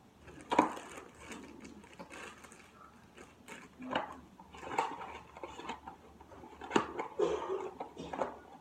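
Irregular clicks, knocks and rustling from objects being handled, with sharper knocks about half a second in, around four seconds in and near seven seconds in.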